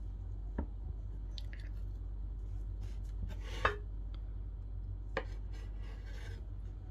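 Long serrated knife cutting through a baked sponge cake, its blade knocking lightly on a bamboo cutting board three times, loudest about halfway through, over a steady low hum.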